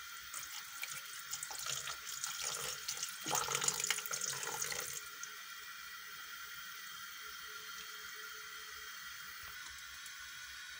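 Water poured from a steel bowl into a glass bowl of batter and mixed in with a spatula, a wet splashing that stops about five seconds in. Only a faint steady background follows.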